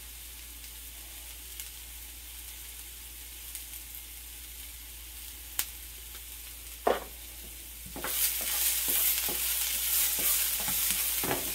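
Ground beef and onions sizzling in a frying pan, a steady hiss with a single knock about seven seconds in. From about eight seconds the sizzle turns louder and crackly, full of small clicks.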